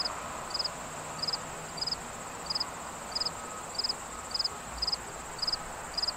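A cricket chirping steadily, short high chirps of three or four quick pulses each, repeated about twice a second, over a steady high-pitched hum.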